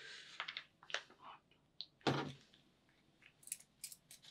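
Faint, scattered clicks and taps of painting materials being handled, with one brief louder sound about two seconds in.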